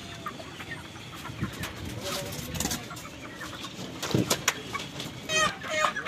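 Broiler chickens clucking, most busily over the last second. Two sharp knocks come a little after four seconds in.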